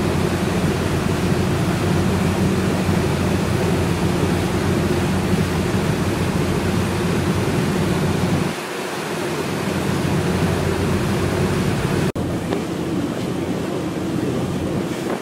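A motorboat under way: the low drone of its engine under the loud, steady rush of churning wake water and spray, with wind on the microphone. The low drone falls away about halfway through, and the sound breaks off for an instant about twelve seconds in before the water noise continues.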